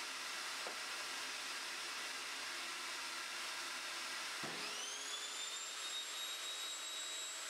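A dust extractor runs steadily. About halfway through, the Evolution Rage 5-S table saw's motor starts: its whine rises quickly and settles into a steady high tone as the blade comes up to speed.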